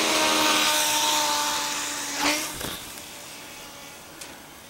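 Tiny electric motor and propeller of a PowerUp 2.0 paper airplane buzzing at a steady pitch with a hiss of air, fading away over about two seconds as the plane flies off. A short knock sounds a little after two seconds in.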